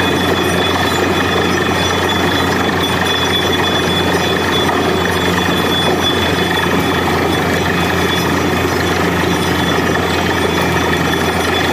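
Truck-mounted borewell drilling rig running steadily while drilling: a dense, loud mechanical din of engine and drilling noise with a constant high whine.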